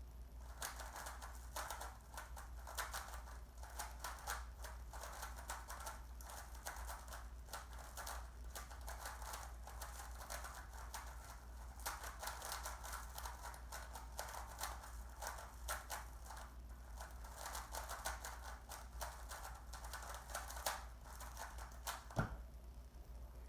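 Rubik's cube being turned at speed during a timed solve: a dense, continuous rattle of plastic layers clicking as they turn. It stops about 22 seconds in with a single sharp knock, as the solve ends.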